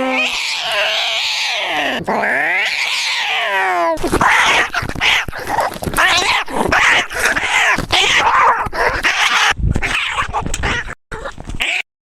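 Cat screaming: long drawn-out yowls that glide down and back up in pitch, then a rapid run of short, harsh yowls, broken by two abrupt cut-offs near the end.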